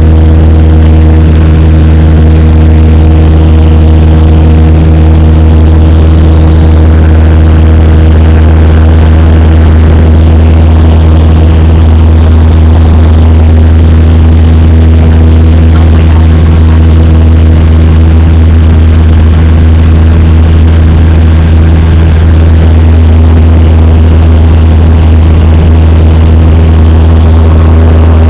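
Cessna 172's engine and propeller in cruising flight, heard inside the cabin as a loud, steady drone at constant pitch.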